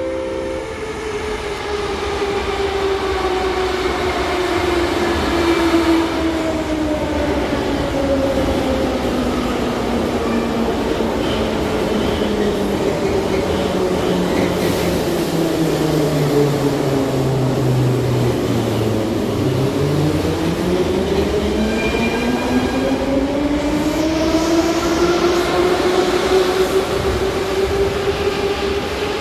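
Electric traction motors of Soviet-style 81-717/714 metro cars whining over the rumble of wheels on rail. The whine falls steadily in pitch as a train slows into the platform, and from about two-thirds of the way in a second whine rises in pitch as a train picks up speed.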